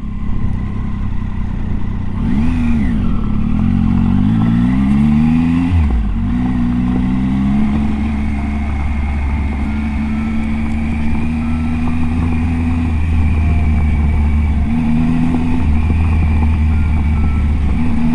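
Triumph Tiger 800 XCA's three-cylinder engine pulling away: the revs climb and drop through a few gear changes in the first several seconds, then hold steady with brief changes in throttle near the end.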